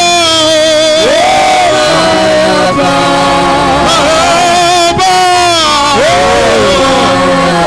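Worship song: a sung vocal line with wavering vibrato over steady, sustained keyboard chords.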